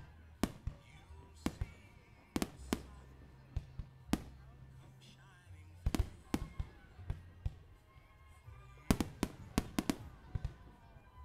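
Aerial firework shells bursting: sharp bangs at uneven intervals, then a quick run of bangs about nine seconds in, over music with a steady bass.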